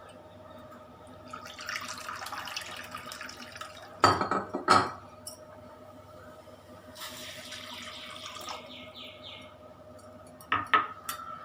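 Water being poured into a pan of grated ginger in two short stretches, with loud clinks of a utensil against the pan about four seconds in and again near the end.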